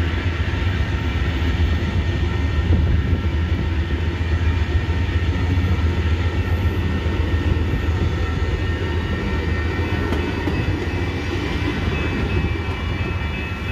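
An Amtrak Midwest passenger train's cars rolling past, a steady rumble of wheels on rail that eases slightly as the last car goes by near the end.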